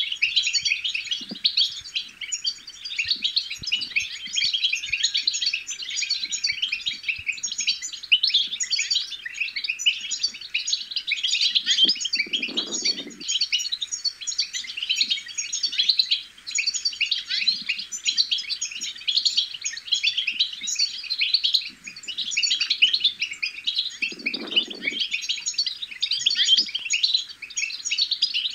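European goldfinch twittering: a fast, unbroken stream of high chirps and trills.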